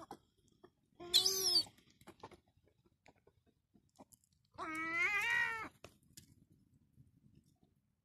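Herring gull calling twice: a short call about a second in with a shrill high squeal over it, then a longer call, about a second long, a little after the middle.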